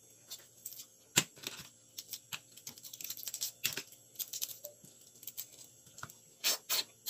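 Cooked crab being pulled apart and picked by hand, with irregular cracks and crackles of shell and wet bites of crab meat. There is one sharp crack about a second in, a run of crackling in the middle and two louder bites near the end.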